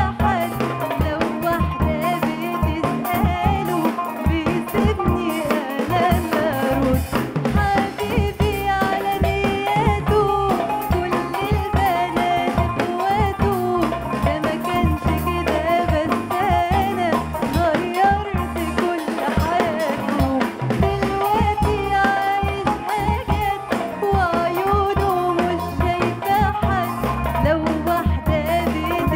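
A woman singing an Arabic pop love song, backed by a band with a drum kit keeping a steady beat.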